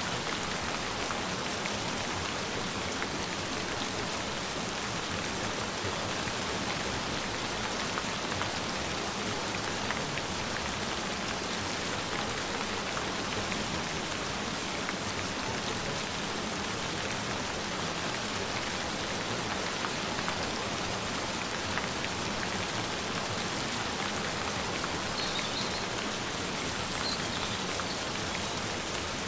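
Gentle rain falling steadily, an even hiss with a fine patter of drops.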